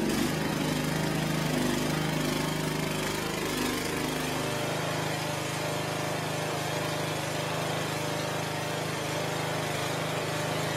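Lawn tractor engine running and driving the alternator of a homemade DC arc welder; its speed wavers at first, then settles to a steady run about four seconds in.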